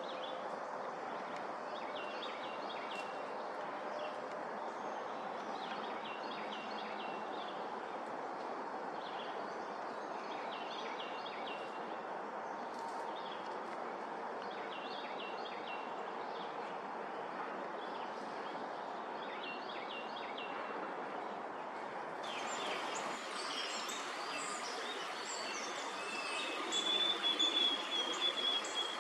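Wild birds singing over a steady rushing background: a short song phrase repeats about every three seconds. Partway through it gives way abruptly to a busier mix of calls, with a clear held whistle near the end.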